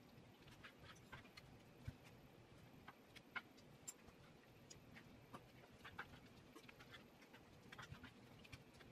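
Faint, irregular clicks and taps of a knife on a wooden cutting board while raw chicken breasts are cut, over near-silent room tone.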